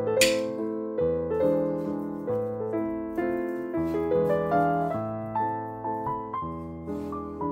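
Background piano music, a steady run of notes about two a second.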